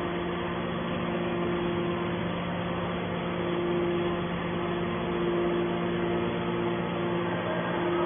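Hydraulic power unit of a scrap metal baler running steadily: a constant mechanical hum with two steady tones over a noisy hiss.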